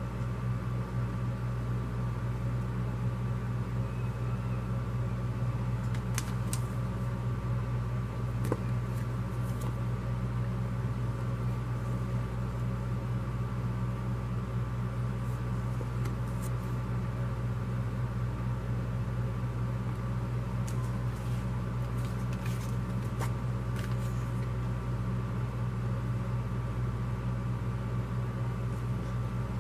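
Steady low mechanical hum, even throughout, with a few faint clicks and rustles of paper cards being handled.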